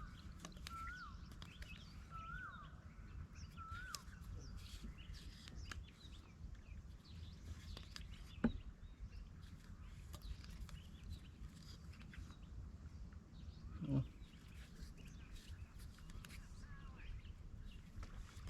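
Outdoor birdsong: a short, repeated up-and-down whistled call about once a second for the first four seconds, then scattered faint chirps over a low steady rumble. There is a sharp click about halfway through and a louder short thump a few seconds later.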